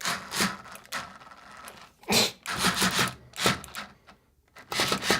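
3.6V cordless screwdriver run in several short bursts against a screw in wood, its bit rattling and chattering in the screw head as it tries to back the screw out.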